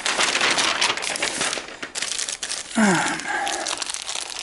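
Crinkling and rustling of paper and plastic being handled, dense for the first two seconds and again near the end. About three seconds in there is a brief low vocal murmur.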